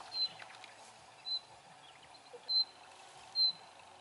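A bird calling one short, high, clear note four times, about once a second, over a steady background hiss.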